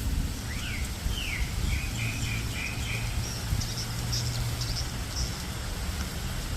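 Birds calling: two quick downward-sliding calls, then a run of short repeated notes, then a few higher, thinner chirps. A steady low rumble runs underneath.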